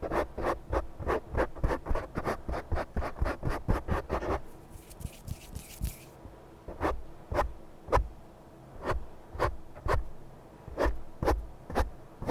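Close-miked scratching strokes in an even rhythm. They run at about four to five a second for the first four seconds, then a brief hiss, then slower strokes about two a second.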